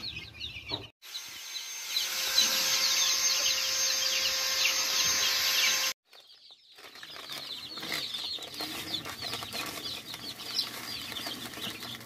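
A brood of young chicks peeping continuously in a chorus of short, high cheeps. It is louder from about one to six seconds in, where a faint steady hum sits underneath.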